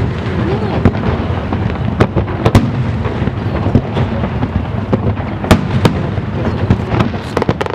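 Aerial firework shells bursting: a string of sharp bangs, some in quick pairs, over a steady low rumble of echoing reports.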